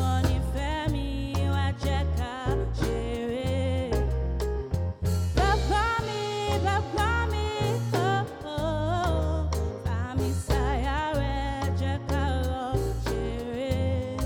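Live band playing a bouncy Nigerian-style love song: drums and a deep bass line in a steady groove under a wavering lead melody.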